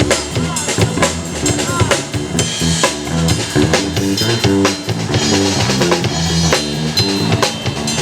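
Live band groove during a sound check: a drum kit keeps a steady beat with kick, snare and rimshots under a moving electric bass line.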